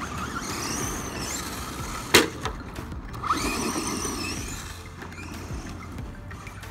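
Electric motor of a 1/10-scale Pro-Line PRO-MT 4x4 RC monster truck whining as it revs up and down, its tyres throwing dirt. A single sharp impact about two seconds in, the truck hitting the ground, is the loudest sound.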